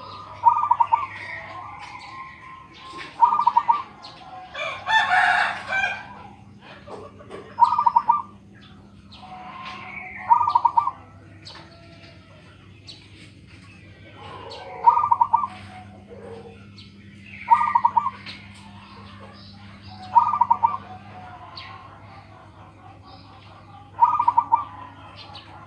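Zebra dove (perkutut) cooing: a short trilled call, repeated about every two to five seconds, eight times. About five seconds in, another bird gives a louder, harsher call. A faint steady hum runs underneath.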